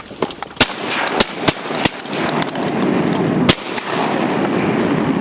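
A volley of shotgun blasts from duck hunters: about five loud shots in quick, uneven succession over three seconds, with a few fainter ones between. Under and after them is a loud, rising rush of noise.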